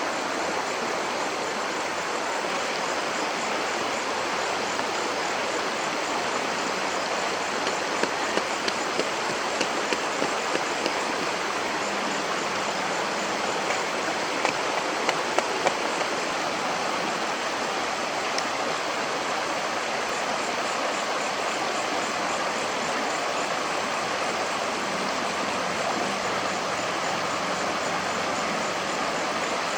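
Stream water running steadily over stones, with a run of light clicks about a third of the way through.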